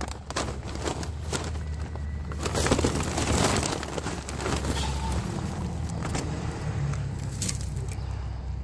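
Footsteps of leather Sperry Top-Sider boat shoes walking across grass, with irregular light steps and a swell of swishing noise a few seconds in. Under them runs a steady low rumble on the handheld camera's microphone.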